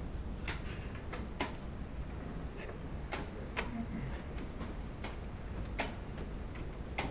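Wooden chess pieces knocked down onto a wooden board and chess clock buttons pressed in quick blitz play: about ten sharp, irregularly spaced clicks over a low background hum.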